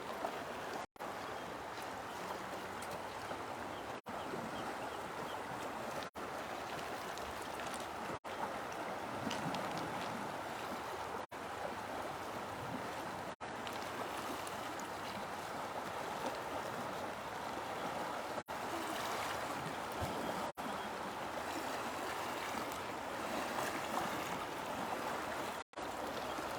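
Steady rush of running water, like a stream, broken by brief dropouts every couple of seconds.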